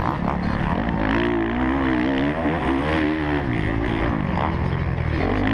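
Kawasaki KX450F four-stroke motocross engine heard up close from the bike, its revs rising and falling again and again as the throttle is worked around the track.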